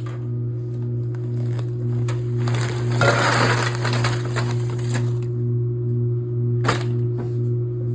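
A steady electrical hum with a faint pulsing overtone. About two and a half seconds in comes a rustling, crunching noise lasting a couple of seconds, and a sharp click comes near the end.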